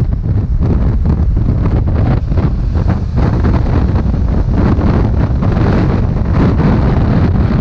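Wind buffeting the microphone of a camera on a moving motorcycle: a loud, steady, low rumble of rushing air with irregular gusts.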